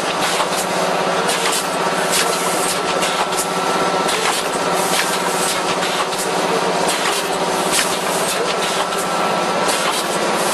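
Automatic suppository production line running: a steady low hum under a dense wash of mechanical noise, with frequent irregular clicks and knocks from the filling and sealing mechanism.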